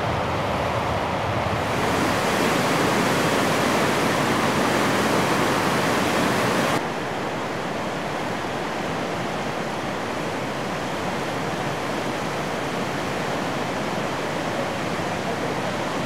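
Fast, turbulent floodwater of a swollen river rushing past concrete bridge piers, a steady rush. About seven seconds in it changes abruptly to a slightly quieter, duller rush.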